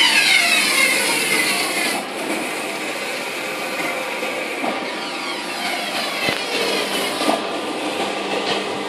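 WitColor Ultra 9200 large-format eco-solvent printer running, its print-head carriage shuttling across the media with motor whines that fall in pitch every two seconds or so, plus a sharp click about six seconds in.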